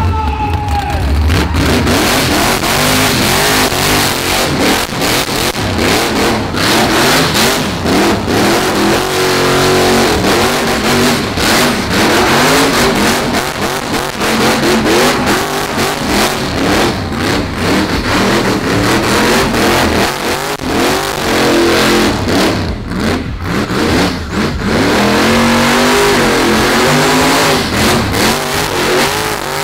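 A car engine revved hard during a burnout, its pitch climbing and falling again and again over a loud, noisy spread of sound.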